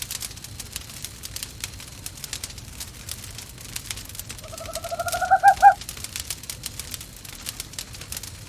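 Wood fire crackling in a fireplace, with a single owl call about halfway through: one call rising slightly in pitch and ending in a few quick pulses.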